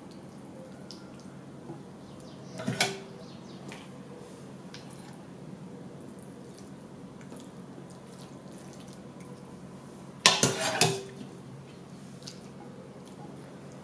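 A metal ladle clinking against the dishes while broth and meat are ladled over couscous on an earthenware platter, with faint dripping between. There is a short clink about three seconds in and a louder cluster of clinks near the end.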